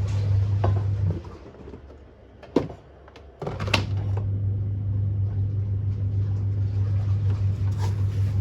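A steady low electric motor hum runs for about a second and stops, with a sharp click in the gap, then starts again with another click and keeps running.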